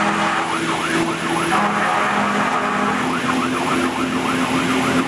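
Fire engine's siren sounding in quick rising-and-falling yelps, heard from inside the cab over the steady drone of the truck's engine; the yelping comes in two stretches, about half a second in and again about three seconds in.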